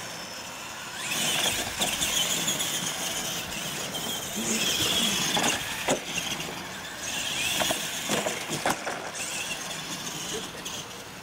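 Radio-controlled monster trucks racing on dirt: their electric motors and gears whine in three or so surges as they accelerate and let off, with several sharp knocks and clatters as they hit ramps and obstacles.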